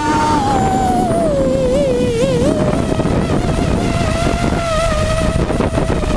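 Hexacopter's six brushless motors and propellers whining, picked up by the onboard camera. The pitch slides down over the first two seconds or so and then holds steady, over a rough rushing of prop wash.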